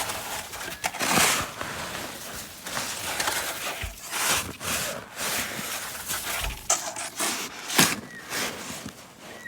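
Repeated crunching and scraping in deep snow, in irregular strokes a few times a second, with one sharper, louder stroke near the end.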